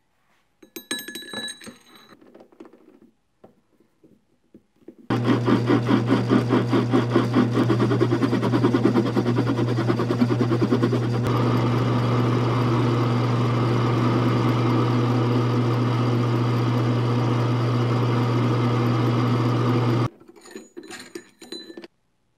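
A few ringing metal clinks as the steel bar and tap handle are handled, then a small metal lathe runs with a steady motor hum as the bar is parted off in the chuck. The cut rattles quickly at first, then goes on evenly. The lathe stops abruptly near the end, and a few more metal clinks follow.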